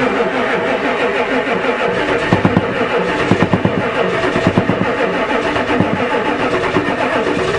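Ford diesel truck engine cranking on the starter in a cold start after its glow plugs have preheated, with the throttle held halfway. Uneven knocking firing comes in about two seconds in as the engine begins to catch.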